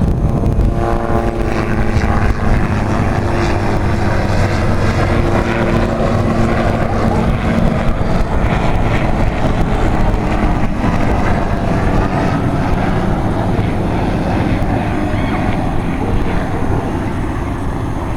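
Helicopter flying at an airshow, a loud continuous rotor and engine noise with tones that bend slowly in pitch as it moves, and wind buffeting the microphone.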